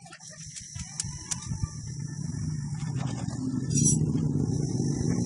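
An engine running, a low rumble that builds over the first two seconds and then holds steady, with a couple of sharp clicks about a second in.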